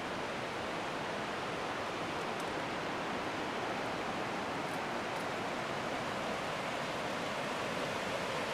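Fast-moving river water rushing over rapids, a steady, even rush.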